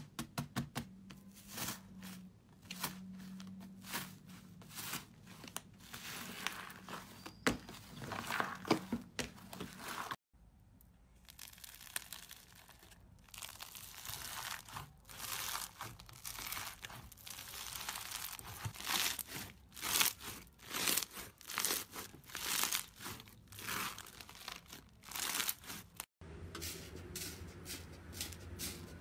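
Crunchy slime being squeezed and pressed by hand, giving dense, irregular crackling and popping. The sound breaks off abruptly twice, once about a third of the way in and again near the end.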